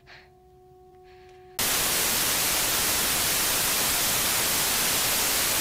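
A faint steady tone, then a sudden cut about a second and a half in to loud, steady TV static hiss.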